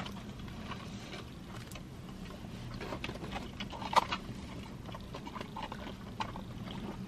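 Close mouth sounds of people chewing bites of a fish burger: soft wet smacks and small clicks, with a louder click about four seconds in. A faint steady hum runs underneath.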